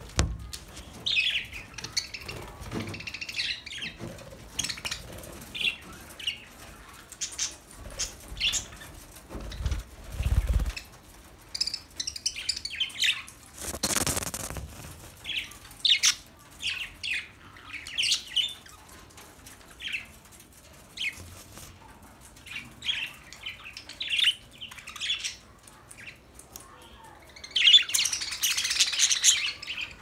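A flock of budgerigars chirping and chattering, with short sharp calls coming every second or so and a dense burst of chatter near the end.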